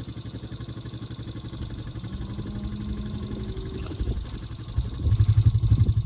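Small gas-engine-driven air compressor running, with a steady, evenly pulsing low engine sound that gets louder about five seconds in.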